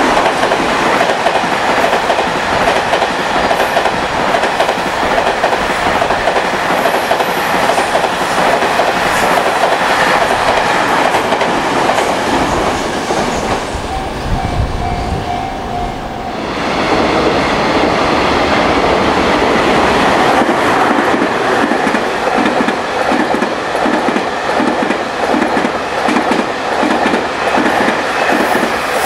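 JR Freight M250 Super Rail Cargo electric freight train passing at speed, its container wagons' wheels clattering over the rail joints. About halfway through the rolling noise drops for a couple of seconds and a level crossing bell rings. Then the train noise returns with a steady rhythmic clickety-clack.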